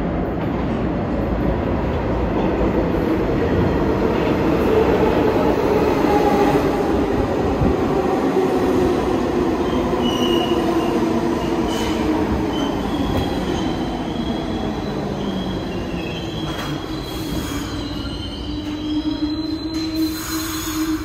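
New York City subway train braking into a station: a heavy rumble of wheels on rail with several tones that slowly fall in pitch as the train slows, and wheel and brake squeal in the second half.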